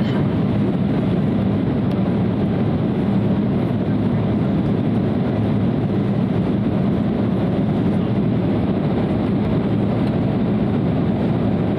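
Steady cabin drone of an Embraer 175 in flight, heard from a seat over the wing: the hum of its two GE CF34-8E turbofans blended with airflow rush, deep and unchanging.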